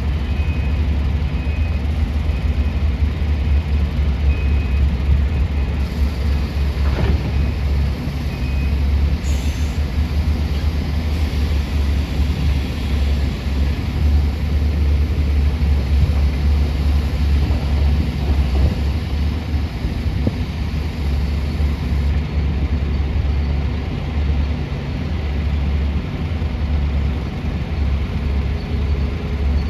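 Heavy earth-moving machinery in a mine, the diesel engines of a hydraulic excavator and dump trucks, running with a deep, steady rumble.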